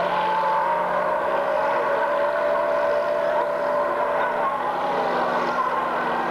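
Motor vehicle engine running steadily, a continuous drone with little change in pitch.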